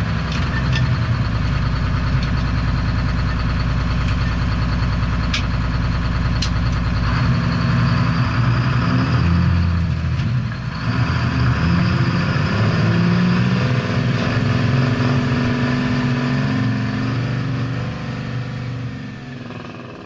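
A large truck engine running, its note shifting around seven and again around eleven seconds in, then fading out near the end.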